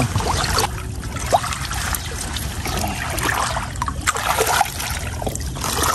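Water trickling and splashing irregularly as a wet gill net is handled in the water and fish are worked free of its mesh.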